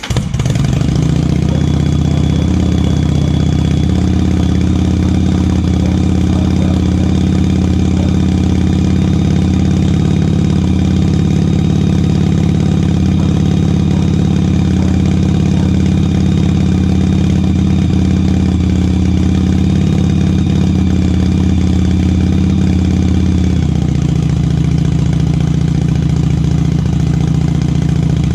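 Yamaha XVS 1100 Drag Star V-twin engine idling steadily just after starting. About 23 seconds in the idle note changes, its deepest tones dropping away as it settles.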